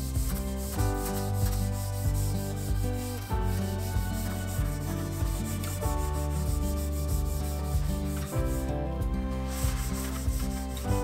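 Gloved hands rubbing wet finish over a maple board in repeated wiping strokes, a dry scratchy rubbing that pauses briefly about three-quarters through. Background music plays under it.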